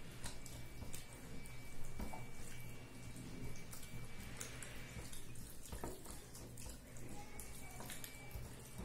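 Fingers mixing rice and cauliflower-potato curry on a plate, with chewing: scattered wet, squishy clicks and smacks close to a clip-on microphone, over a steady low hum.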